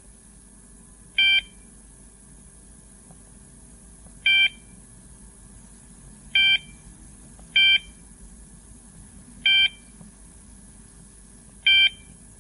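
G-65 alarm system giving six short electronic beeps at uneven intervals, each a fraction of a second long and much louder than the background.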